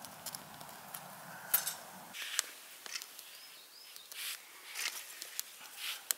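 Small wood fire burning in a Bushbox LF folding stove, crackling with irregular sharp snaps and pops as the tinder and twigs catch.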